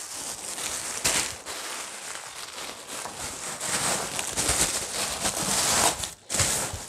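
Plastic bubble wrap crinkling and rustling as it is handled and stuffed into a cardboard box, with a short pause about six seconds in.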